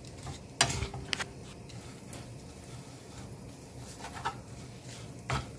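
Wooden spatula stirring and scraping fried bitter gourd in a nonstick frying pan, with a few short scrapes and knocks, the loudest about half a second in.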